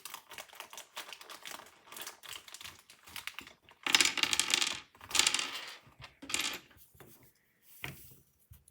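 Plastic keyboard keycaps clicking and clattering as they are handled, pulled off and set down, with louder rattling bursts about four and five seconds in.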